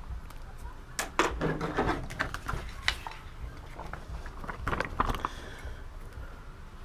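A few short clicks and rustles, bunched about a second in, near three seconds and about five seconds in: a clear plastic grip sheet being handled and trimmed with scissors.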